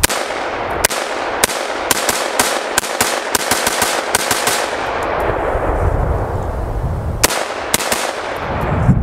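Smith & Wesson M&P15 AR-15 firing Tula 55-grain .223 steel-case rounds in rapid semi-automatic fire during a mag dump. About fourteen shots come faster and faster over the first four and a half seconds, then after a pause two more shots follow, each shot trailed by a long rolling echo.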